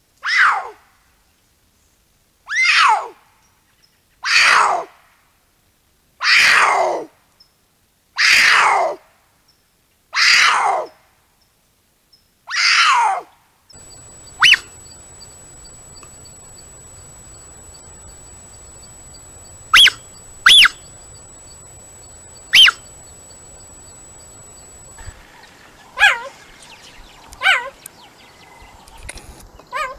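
A cougar screaming: about seven loud calls roughly two seconds apart, each falling in pitch. From about halfway, a cougar gives a few short, sharp, high chirps, and near the end a cheetah chirps twice.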